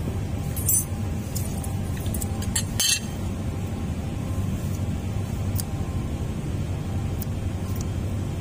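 Light metal clicks and scraping of a small steel pick worked against the housing of a forklift roll clamp's hydraulic rotary motor, a dozen or so scattered ticks with the loudest about three seconds in. A steady low rumble runs underneath.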